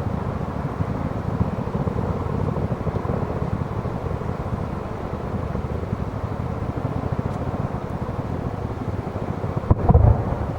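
Aerial fireworks display: a steady low rumble of many rapid shell bursts and crackles, with one loud boom from a large shell near the end.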